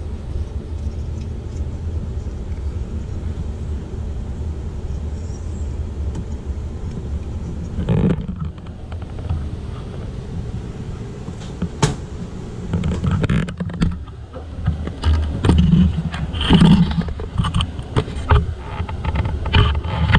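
Steady low rumble with scattered knocks, clicks and rustles from hands working around a copper pipe's brass elbow fitting and wiping it with a paper towel, checking the re-tightened joint for a leak.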